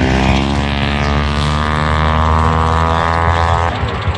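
Snowmobile engine running steadily, its pitch sinking slightly before it drops away near the end.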